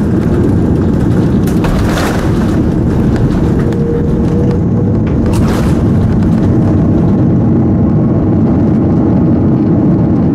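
Cabin noise of an Airbus A330-300 rolling out on the runway after landing: a loud, steady rumble of wheels and engines with a few thumps, the higher hiss fading after about six seconds as the aircraft slows.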